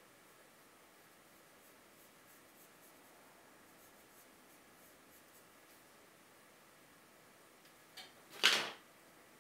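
Wooden graphite pencil drawing on paper: faint light strokes, then near the end a short tick and one loud stroke lasting about a third of a second.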